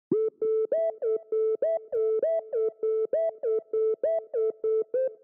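Synthesizer music: a quick electronic melody of short, clipped notes, about four a second, each with a small upward slide at its start, bouncing between a few pitches.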